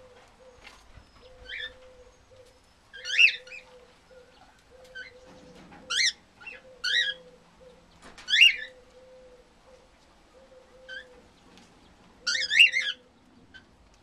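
Cockatiels calling with short, sharp chirps, several scattered single calls and a quick run of chirps near the end.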